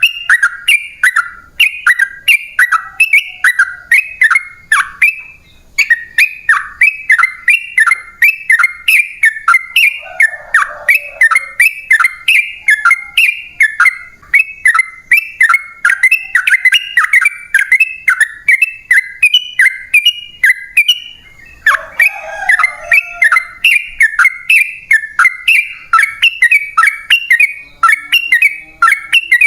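Yellow-vented bulbul (trucukan) singing a long, rapid string of short chirps, each dropping in pitch, about three a second. The song breaks off briefly about five seconds in and again about twenty-one seconds in.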